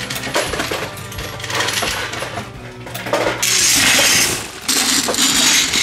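Brass 9mm cartridges clinking and rattling against each other, with a loud, sustained rattle of many rounds about halfway through and again near the end.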